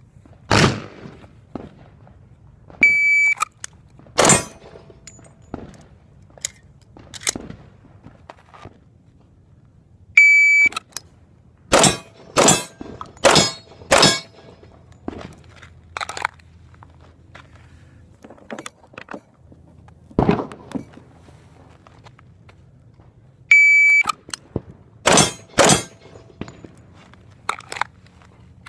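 Pistol shots: sharp single reports and quick strings of three or four, with fainter shots in between. A short electronic beep sounds three times, and each beep is followed by a run of shots.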